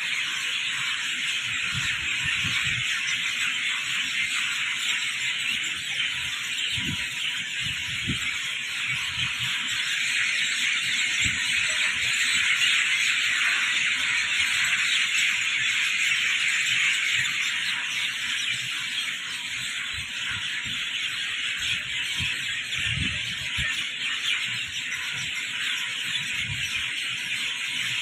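A steady, dense, high-pitched chorus of calling creatures, swelling in the middle and easing toward the end, with occasional low thumps.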